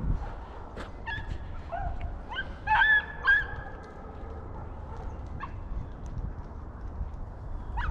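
Rabbit-hunting dogs baying as they run a rabbit: a run of short, high yelps between about one and three and a half seconds in, and more starting at the very end.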